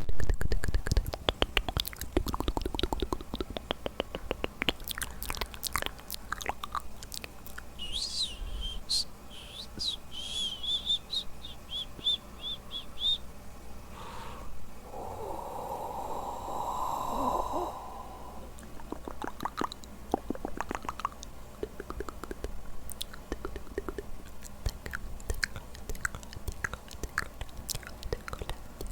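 Close-microphone ASMR mouth sounds: many wet mouth clicks and tongue pops. About a third of the way in comes a run of short high-pitched squeaks, and a rougher sound lasts about three seconds around the middle.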